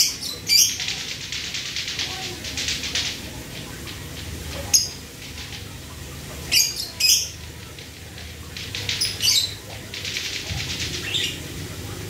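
Male lovebird in breeding condition making its rapid ticking chatter, the "ngetik" call likened to lato-lato clackers, in two runs of about two seconds each. Sharp, short, high chirps come between the runs.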